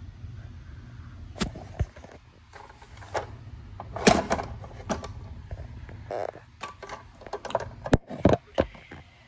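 Handling noise from a Lionel O scale Federal Reserve mint car: a run of clicks and knocks as the car is picked up and tipped over, loudest about four seconds in and again near the end, over a low steady hum.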